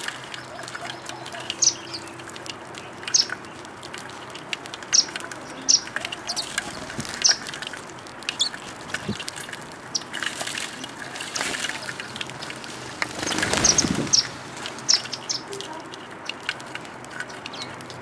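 House sparrows chirping, with short, sharp, irregular chirps throughout. About three-quarters of the way through comes a louder flurry of flapping wings.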